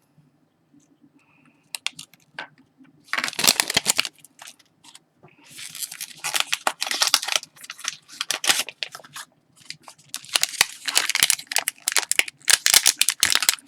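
Mystery-pin blind-box packaging being torn open and crinkled by hand: a few small clicks, then bursts of tearing and rustling from about three seconds in, almost unbroken in the second half.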